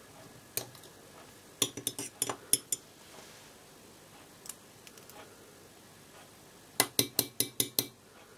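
Hobby knife blade clicking against the hard plastic of a LEGO pneumatic switch body as it is trimmed: sharp clicks in quick runs, a cluster about a second and a half in and a run of about six near the end.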